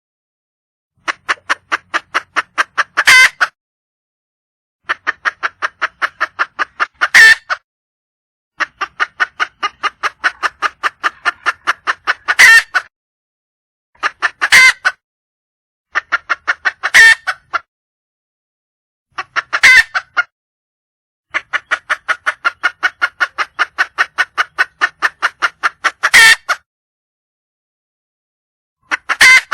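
Junglefowl hen calling for a mate: bouts of rapid clucks, about eight to ten a second, each bout ending in one louder, drawn-out note, repeated about seven times with short pauses between.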